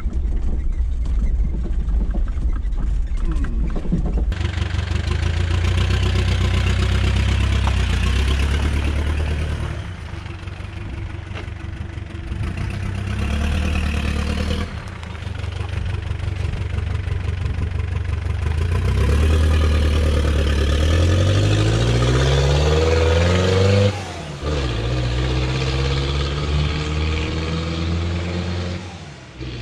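Mitsubishi 4D55 turbodiesel in a Dodge Raider, heard first as a low rumble from inside the cabin while driving, then from outside the vehicle. From outside it runs and rises in pitch as it accelerates, most clearly twice in the second half.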